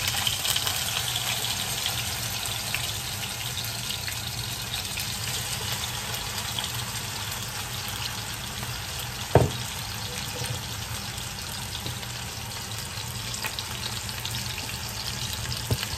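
Corvina steaks sizzling steadily in a little oil in a nonstick frying pan, with a single sharp knock about nine seconds in.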